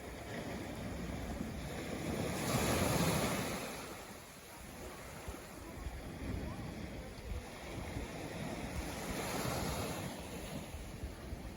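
Ocean waves washing onto the shore, one surge peaking about three seconds in and a softer one near the end.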